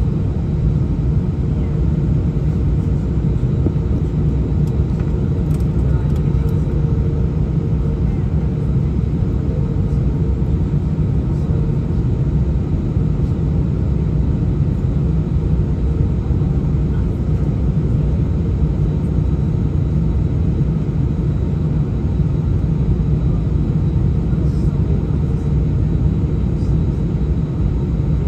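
Steady low rumble inside the cabin of an Airbus A319 on the ground during taxi, its jet engines running at low power with a steady hum over the cabin noise.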